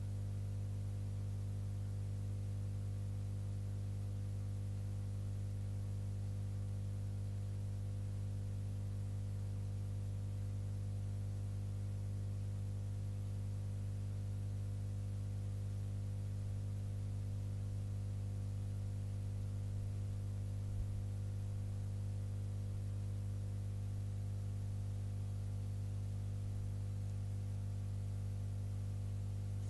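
Steady low electrical hum with a faint hiss.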